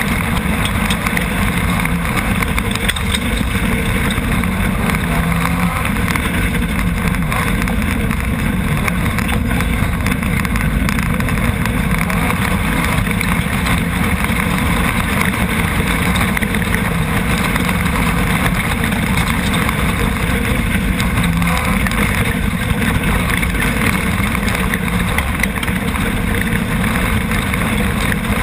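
Nissan VQ35 3.5-litre V6 engine of a Chenowth off-road racing buggy running hard at racing speed on a dirt track, heard from on board over steady wind and road noise.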